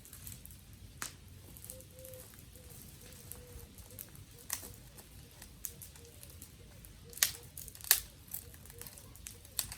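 Dry twigs cracking: a few sharp, separate pops spread over several seconds, the two loudest close together near the end, over a faint steady crackle.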